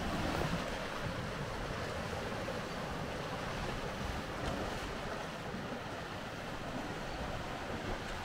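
Steady rush of sea surf washing against the rocky foot of a cliff, mixed with wind on the microphone.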